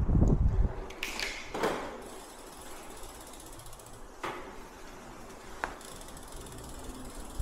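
Mechanical ratchet clicking, with a heavy low rumble of wind on the microphone in the first moment and a few sharper knocks later on.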